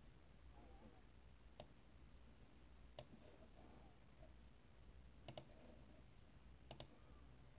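Faint computer mouse clicks against near silence: two single clicks, then two quick double clicks near the end.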